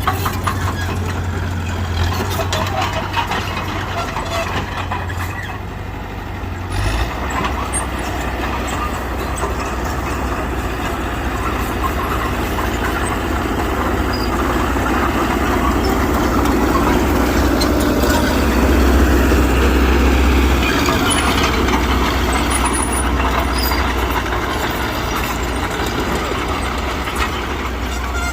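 Diesel engine of heavy earthmoving machinery running steadily. Its low hum changes pitch about seven seconds in and grows louder around twenty seconds in.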